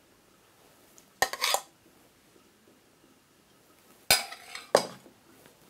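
Metal spoon clinking and scraping on a ceramic serving plate while couscous is spooned out. There is a short clink about a second in, then two more near the end.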